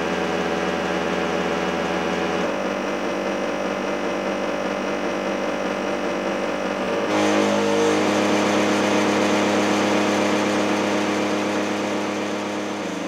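A steady drone of several held tones sounding together, which switches abruptly to a new set of pitches twice, about two and a half and seven seconds in. This is the tone that sets the rippling cymatic patterns in the display, which change shape with each new pitch.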